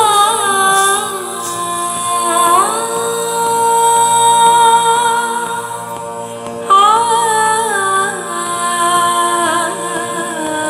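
An Indian classical-style song with a woman singing ornamented phrases and one long held note over a steady instrumental drone. A new sung phrase comes in loudly about two-thirds of the way through.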